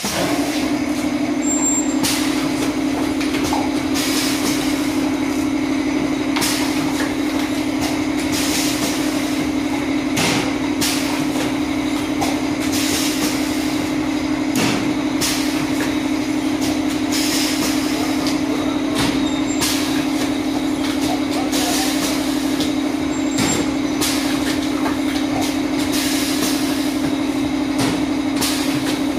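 Pneumatic cup filling and sealing machine running: a steady hum with a short hiss of compressed air about every two seconds as its cylinders cycle.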